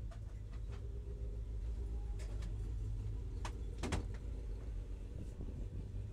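Inside a Spec E30 race car at low speed or standstill: a steady low rumble with no revving, with a few clicks and clunks, the loudest a sharp double knock about four seconds in.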